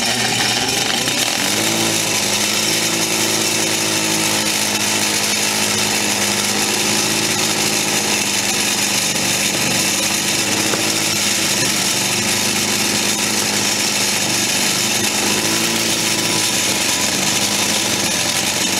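Bench grinder running with a wire wheel brushing grime and buildup off an old brass shower-valve stem assembly held against it: a steady, loud hiss of wire on metal over the motor's hum.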